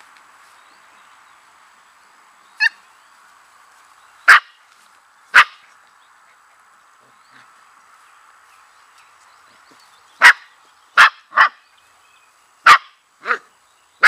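Six-week-old Samoyed puppies giving short, sharp yips and barks as they play-wrestle, about nine in all: a few spaced out at first, then a quick run of them near the end.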